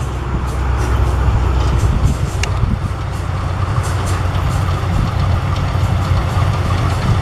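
Yanmar AW82V combine harvester running steadily: a low diesel engine drone under a constant rush of machinery noise, with faint high ticks.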